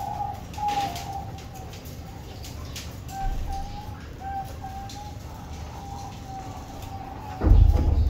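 Pied diamond doves cooing, a string of short coos one after another, with a loud low thump near the end.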